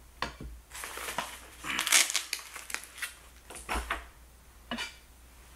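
Handling noise from a camera ND filter being picked up and shown: about six short bursts of crinkling and rustling, with small clicks.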